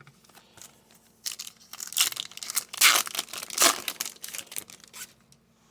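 Crinkling and tearing of a trading-card pack wrapper being handled, in a run of rough crackles that starts about a second in and dies away near the end.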